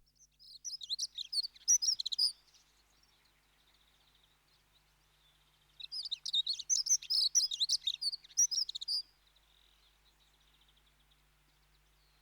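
Dunnock (hedge sparrow) singing two quick, high warbling song phrases, the first about half a second in and a longer one from about six to nine seconds, with quiet between.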